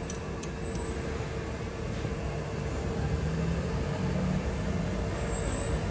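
A Toyota Innova's engine running at idle, a steady hum with an even hiss and a held low tone.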